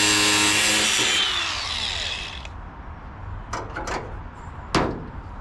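Angle grinder cutting threaded rod, a loud high whine. About a second in it is switched off and its pitch falls away as the disc spins down. A few sharp knocks follow, the loudest near the end.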